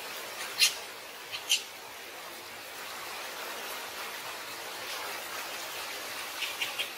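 Baby macaque giving short, high-pitched squeaks: two in the first second and a half, then a quick run of three or four near the end, over a steady hiss.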